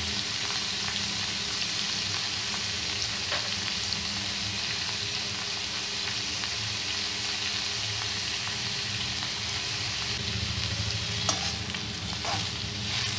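Ridge gourd peel, ridge gourd pieces and green chillies sizzling steadily in hot oil in a pan. There are a few light knocks near the end as a spoon stirs them.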